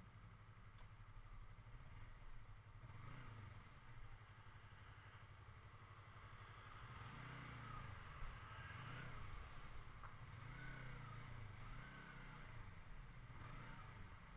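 A sport motorcycle's engine running faintly at low speed, its pitch rising and falling a few times with the throttle.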